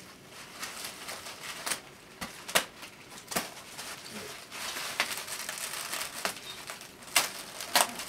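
Bubble wrap crinkling and rustling as it is handled and pulled away, with a handful of sharp clicks and snaps scattered through.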